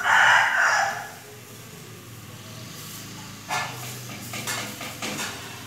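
A loud, short burst of sound in the first second, then a spoon scraping and knocking through chopped vegetables in a plastic mixing bowl, several times in the second half.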